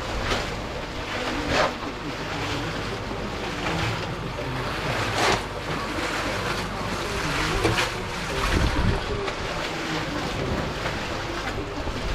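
Concrete mixer drum turning with a batch of concrete churning inside, a steady sloshing noise. A few sharp shovel scrapes cut through it, about a second and a half in, at five seconds and near eight seconds.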